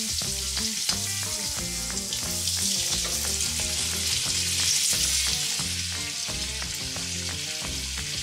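Flour-dredged wiper (hybrid striped bass) fillets frying in hot vegetable oil in a pan, a steady hiss of sizzling fat. Background music with a steady beat plays underneath.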